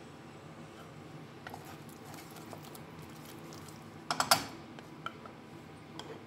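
Wooden spatula stirring in a pot of frying garlic, with a quick clatter of knocks against the pot about four seconds in and a few lighter taps, over a low steady hum.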